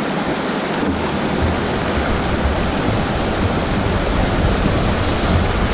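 Shallow river rapids rushing over rocks: a steady, loud rush of whitewater close to the microphone.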